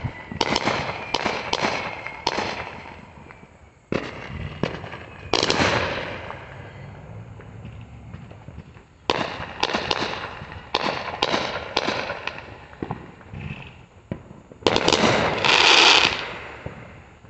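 Aerial fireworks going off in clusters of sharp bangs that echo after each report, with one big bang about five seconds in. Near the end comes the loudest part, a dense run of rapid crackling as a shell bursts into crackling white stars.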